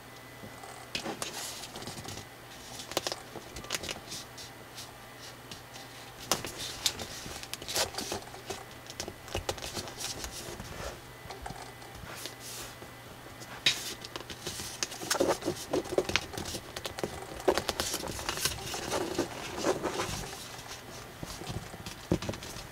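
Thick coloured drawing paper being folded and creased by hand: irregular rustling with crisp little taps as folds are pressed flat. The handling rustle gets busier in the second half.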